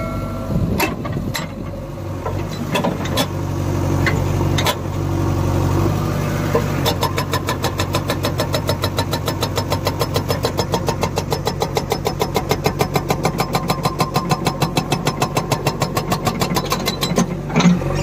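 JCB 3DX backhoe loader's diesel engine running, with a few separate knocks in the first seconds. From about seven seconds in, its hydraulic breaker hammers into rubble and rock in a fast, even rhythm of blows, stopping shortly before the end.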